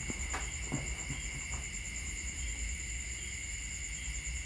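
Steady chirring of crickets in a high, unbroken chorus, with a few light clicks of a utensil against the wok in the first second and a half.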